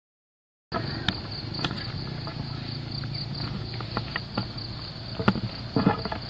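After a brief silence, a steady high chorus of insects starts, over a low steady rumble of outdoor ambience. Scattered footsteps and the crackle of leaves brushing come in as someone walks a muddy path through thick undergrowth, busier near the end.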